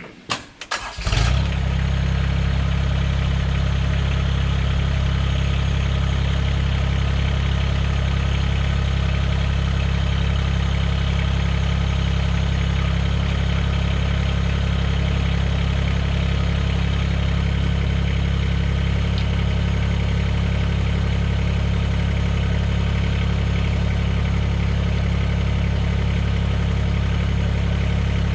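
Mahindra eMax 20S HST tractor's three-cylinder diesel engine starting about a second in, after a few brief knocks, then idling steadily.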